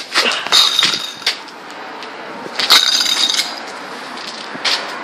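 Ice clinking and cracking in two brittle bursts, the first about half a second in and the second around three seconds in, over a steady rush of gale wind.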